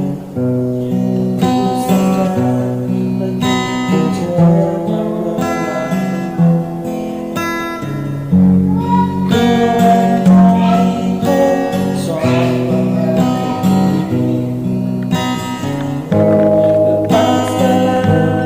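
Background music led by strummed acoustic guitar, with a singing voice in parts.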